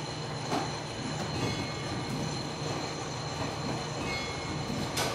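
Sighișoara clock tower's iron striking mechanism running: a steady whirring and rattling of the gear train, with a sharp clank about half a second in and another near the end.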